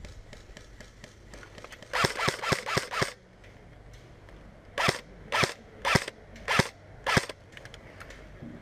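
Airsoft rifle firing: a rapid burst of about six shots, then five single shots a little over half a second apart.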